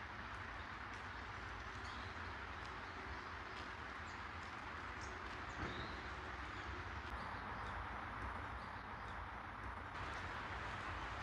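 Outdoor park ambience: a steady background hum, with light ticking like footsteps on a path and a few faint bird chirps.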